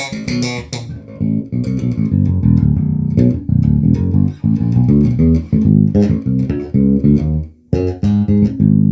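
Carvin Icon 5 five-string electric bass played on its rear single-coil pickup with the active preamp set flat, through a bass amp: a fast run of plucked notes, a short break near the end, then a last note left ringing.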